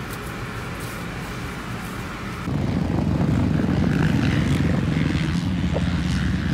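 Motocross dirt bike engines running together as a dense low rumble, which comes in suddenly about two and a half seconds in after a quieter stretch.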